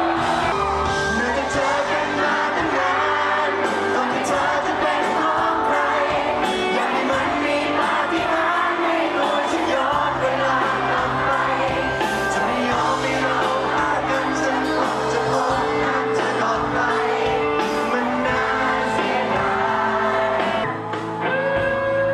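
Live pop band playing with singing, with fans in the crowd shouting and whooping.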